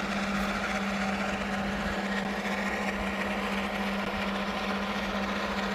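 A steady machine hum with a constant low tone and an even hiss, with no change in level or pitch.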